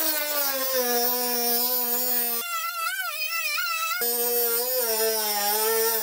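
Dnipro-M MG-12 12 V cordless rotary tool running at speed setting 5, its abrasive cut-off disc grinding into a thick steel screw with a steady high whine. For about a second and a half in the middle the tone wavers and rises as the disc bites into the metal, then settles back.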